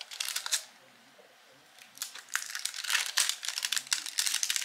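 Plastic protective film on a diamond-painting canvas crinkling and crackling as it is peeled and folded back by hand, in two spells with a quiet pause of about a second between them.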